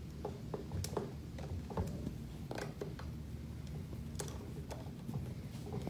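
Light, irregular metal clicks and ticks of a T-handle hex key turning the top air-port plugs out of a Kinetrol vane actuator.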